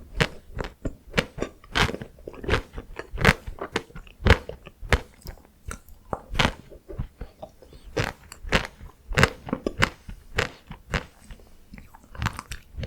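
Close-miked biting and chewing of chocolate-coated Tico ice cream bites: sharp, irregular crunches, one or two a second, as the hard chocolate shell cracks between the teeth.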